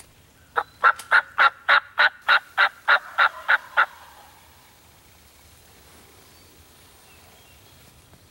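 Turkey call yelping: a steady string of about a dozen evenly spaced hen yelps over about three seconds, made to call in a gobbler.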